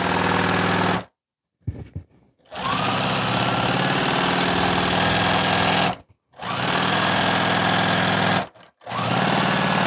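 Domestic sewing machine with a walking foot stitching at a steady speed in four runs. It stops three times: once about a second in for over a second, with a few faint clicks, and twice briefly later on. The stops are pauses where the needle is left down and the quilt is pivoted to the next crosshatch line.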